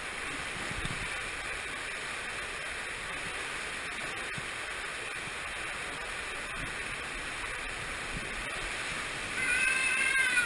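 Water rushing and an inflatable raft sliding through an enclosed tube water slide, a steady rushing hiss. Near the end, as the raft shoots out into spraying water, a rider lets out a high yell over it.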